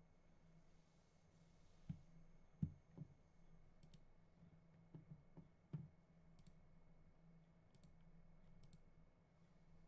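Chess pieces being moved on a board: a few soft knocks, the loudest about two and a half seconds in, with sharp double clicks between them, over a faint steady hum.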